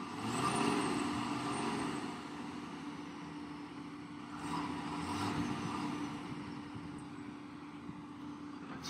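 Heavy diesel engines of a stuck Tata tipper truck and a JCB excavator running. They swell twice in the first couple of seconds and again around the middle.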